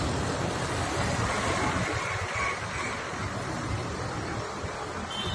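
Steady rumble of a large coach bus's engine running close by, with a noisy wash of traffic.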